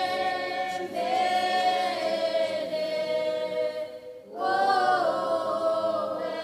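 A choir of voices singing unaccompanied, holding long notes. The singing breaks off briefly about four seconds in, then the next phrase begins.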